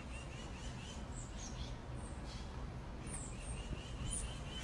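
Small birds chirping faintly in the background: two quick runs of short high notes, one at the start and one about three seconds in, over a low steady rumble.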